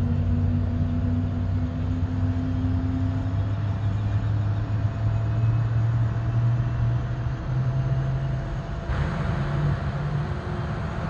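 The GE CF6 turbofan engines of a Boeing 767-300ER running on the ground: a steady low rumble with droning tones that slowly shift in pitch. A broader hiss joins suddenly about nine seconds in.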